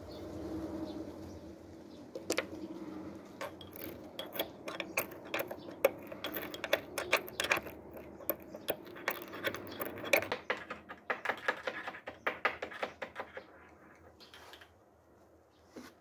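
Small brass mortar and pestle grinding saffron threads: quick, irregular metal-on-metal clicks and taps that start a couple of seconds in and die away a couple of seconds before the end.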